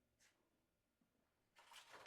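Near silence: room tone, with a short faint rustle about a quarter second in and another, slightly longer, near the end.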